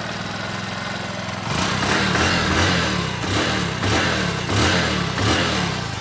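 Motorcycle engine running, started without its key by joining the ignition wires. It idles steadily, then from about a second and a half in it is revved in a series of repeated throttle blips.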